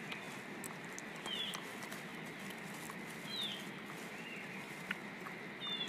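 Short, faint, high animal chirps that fall in pitch, repeating about every two seconds, with softer rising-and-falling whistles between them and a single click near the end, over a steady low hiss.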